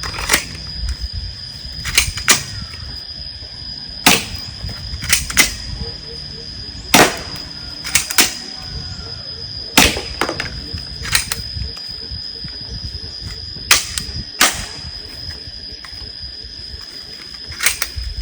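BB air gun firing single shots, about fifteen sharp cracks at irregular intervals, several coming in quick pairs. A steady high-pitched tone runs underneath.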